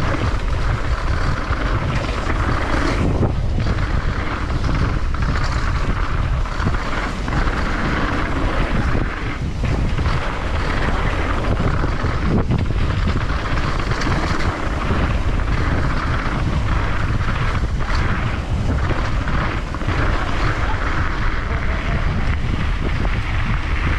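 Wind rushing over the microphone of a downhill mountain bike at speed, a loud, steady rush with a few sharp knocks along the way.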